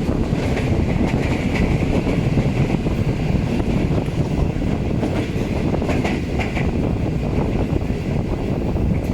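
Passenger train running on the track: a steady, loud rumble of wheels on rail with faint scattered clicks.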